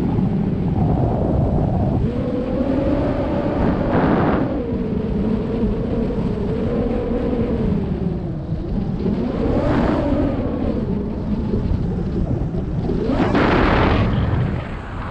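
Heavy wind buffeting on the microphone: a constant low rumble that surges about four, ten and thirteen seconds in, with a faint tone wavering up and down in pitch underneath.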